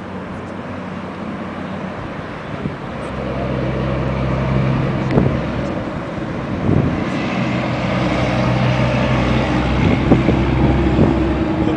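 A steady engine hum, with wind on the microphone, that swells in about three seconds in, and a few sharp knocks.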